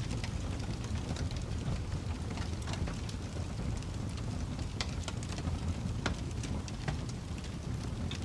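Wood fire crackling: irregular pops and snaps of burning firewood over a steady low rumble.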